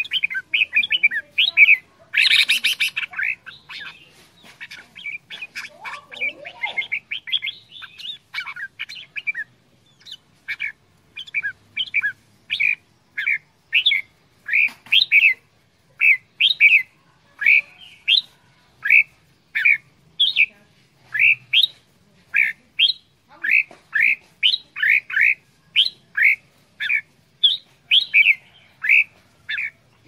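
Red-whiskered bulbul calling: quick chattering notes with one loud, harsh squawk about two seconds in, then a long run of short, sharp notes repeated about twice a second.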